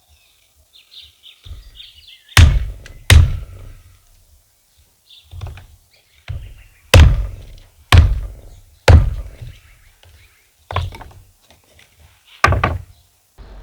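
Firewood being chopped into small kindling on a wooden stump: about ten sharp chopping thunks at uneven intervals, with a pause of a second or two between some of them.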